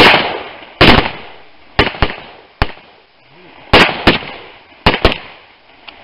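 Gunshots fired in quick succession, about eight in six seconds, some in close pairs, each followed by a short fading echo. These are shots at a Tannerite-filled pumpkin target, and none sets it off: there is no larger blast among them.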